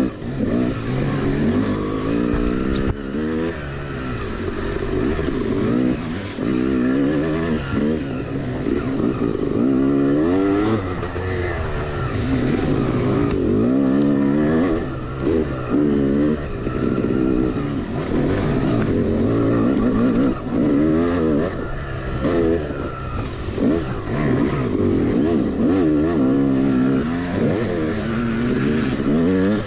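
Yamaha YZ250 two-stroke single-cylinder dirt bike engine revving up and dropping off again and again as it is ridden along a rough trail, heard from on the bike.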